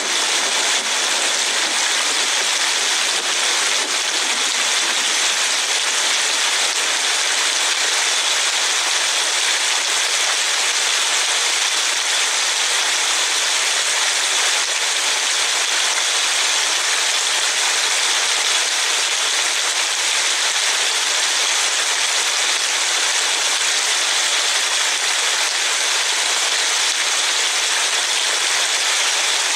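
Steady hiss of heavy rain and wet road heard from a moving car, even and unbroken throughout.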